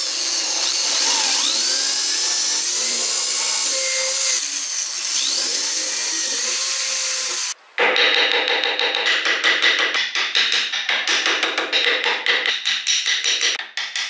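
Small handheld electric drill boring into hardwood, its motor whine rising and falling in pitch as the trigger is worked, which cuts off abruptly about seven and a half seconds in. Then a narrow wood chisel pares and scrapes out the drilled hole in quick repeated strokes, squaring it into a mortise for a switch.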